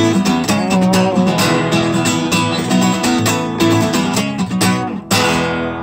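Acoustic guitar playing the closing bars of a song without singing, with notes and strums in quick succession. About five seconds in, a chord is struck hard and left to ring out.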